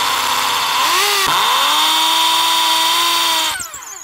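Makita M0801B 500-watt hammer drill in hammer mode, drilling into a clay brick with a masonry bit. It runs loud and steady, its pitch dips and recovers about a second in, and near the end it is released and winds down.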